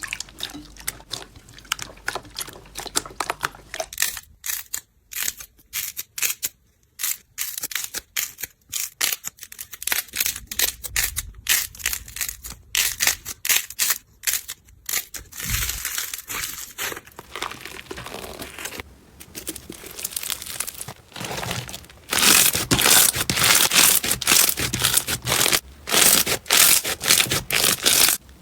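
Slime being worked by hand, squished, pressed and stretched, giving a dense run of small clicks and pops that get louder about three quarters of the way through.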